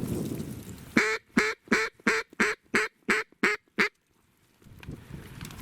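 A quick series of about nine loud, evenly spaced mallard quacks, roughly three a second, which stops abruptly.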